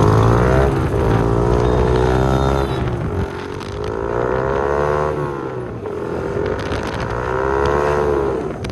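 Motorcycle engine running under way, its pitch rising and falling three times as the throttle is opened and closed.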